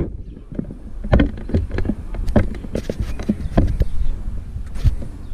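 Irregular clicks and light knocks of small parts and hand tools being handled during spark plug work on a chainsaw, over a steady low rumble.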